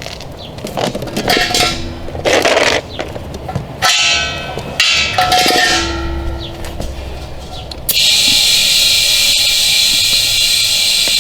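A portable air tank's hose and chuck being worked onto the tire's valve stem, with short bursts of hiss and metallic clinks. About eight seconds in, a steady, loud hiss of compressed air starts as the freshly plugged tire fills.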